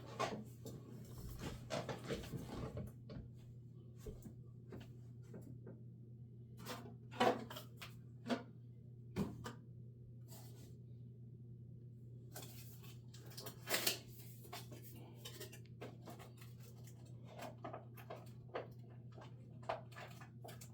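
Hands rummaging through stored trading cards and their containers: scattered light clicks, taps and rustles, with a few sharper knocks, over a steady low hum.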